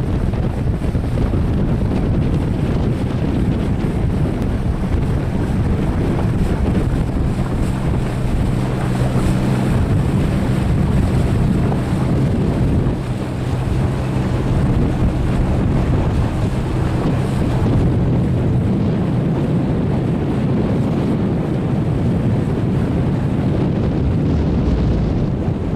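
Motorboat under way: a steady engine drone with wind buffeting the microphone and water rushing past the hull.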